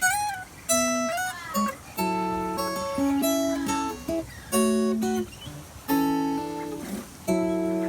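Solo acoustic guitar playing a slow instrumental piece: plucked notes and chords, a new one about every second, each left to ring and fade.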